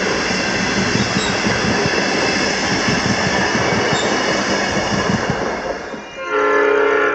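Passenger train carriages rolling past on the rails: a steady, dense rumble of wheels on track that fades near the end as the last carriage clears. Right at the end a loud, sustained chord-like tone sounds for under a second.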